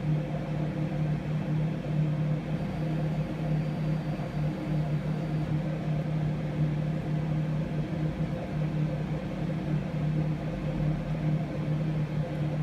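Lathe running with a steady motor hum.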